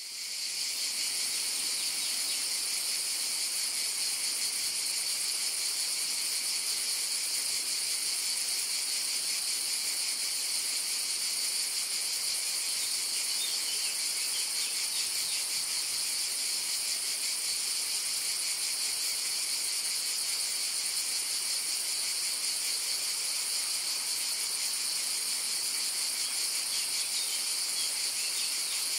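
A chorus of cicadas singing, a steady high-pitched buzz that fades in at the very start and then holds unbroken.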